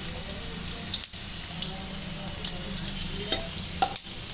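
Whole garlic cloves sizzling in hot mustard oil in an iron kadhai, a steady hiss with scattered crackles and pops as the garlic browns.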